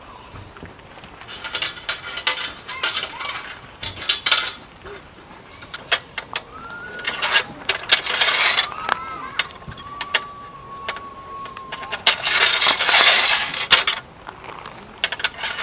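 Camping gear being handled: rustling with sharp metal clinks, in several bursts. A thin, drawn-out whistle sounds in the middle.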